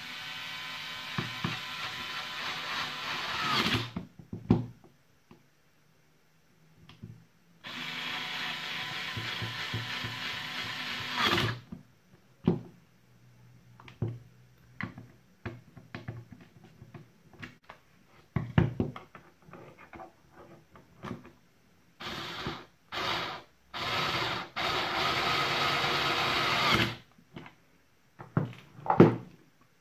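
Cordless electric screwdriver motor running in several runs of a few seconds, driving screws into the plastic drill housing, with short blips of the motor and clicks and knocks of plastic parts between.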